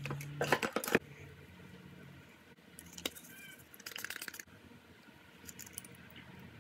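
Small skincare bottles being handled: a flurry of clicks and knocks from caps and bottles, then a short rustling, hissing noise at the face about three seconds in, and a few light ticks near the end.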